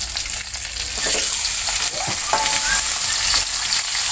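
Pindang fish sizzling in hot oil in a wok, the frying hiss growing louder about a second in as the fish goes into the oil, with a metal spatula scraping in the pan.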